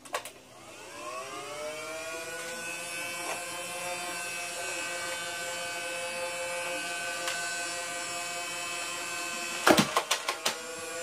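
Motorized Nerf Rival blaster's two flywheels spinning up after a click to a steady high whine. About ten seconds in comes a quick run of sharp clacks as it fires, loaded with a single ball, while the flywheels keep whirring.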